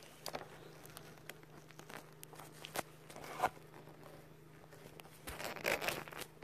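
Light handling sounds of a plastic practice finger being picked up and turned over: faint scattered clicks and rubs, with a louder cluster of them near the end.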